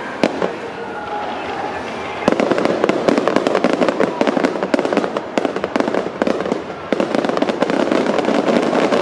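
Aerial fireworks bursting overhead: one sharp report near the start, then from about two seconds in a dense crackle of many rapid small pops.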